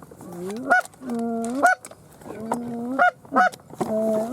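Goose honking: repeated calls, each a held low note breaking sharply up into a short higher honk, about five times.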